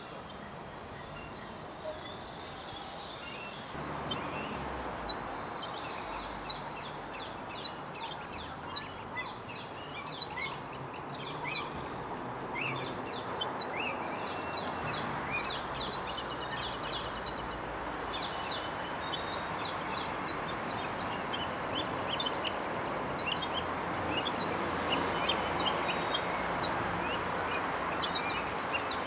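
Many short bird chirps, rapid and overlapping, over a steady hiss that grows louder about four seconds in and again toward the end.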